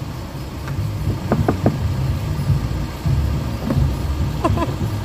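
Car engine idling with a steady low rumble, with a few brief high blips over it.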